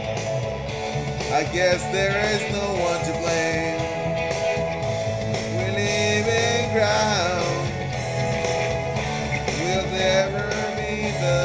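A man singing along over a rock backing track with guitar and drums; his voice rises and falls in long sung lines over steady sustained chords.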